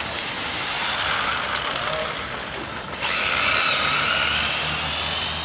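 Small electric motors of remote-control cars whining as they race, with a louder, higher whine coming in about three seconds in.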